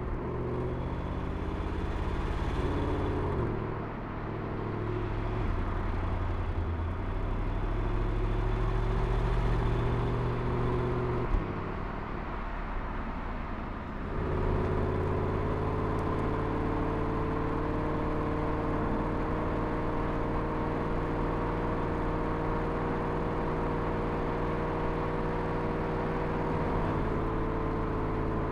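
The 2017 Porsche Panamera Turbo's four-litre twin-turbo V8 running as the car drives along. Its note rises and falls through the first half, with one short sharp knock a little before halfway, then settles into a steady cruising drone for the rest.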